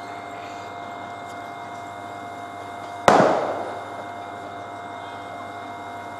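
A single sharp bang about three seconds in, dying away within a second, over a steady hum.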